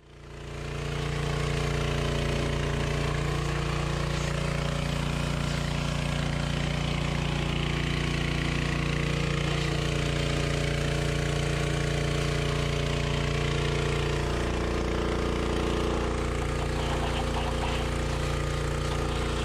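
Briggs & Stratton 3,000 PSI gas pressure washer running steadily under load, its small engine droning with the hiss of the high-pressure water jet over it. It fades in during the first second.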